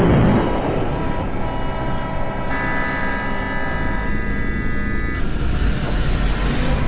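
Traffic and heavy-machinery sound effects with a steady rumble, a heavy thud at the start and a vehicle horn held for a couple of seconds midway.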